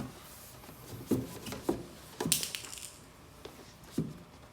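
Parts of a massage chair being handled: a handful of separate knocks and clunks, the loudest about two seconds in with a short scraping rattle after it.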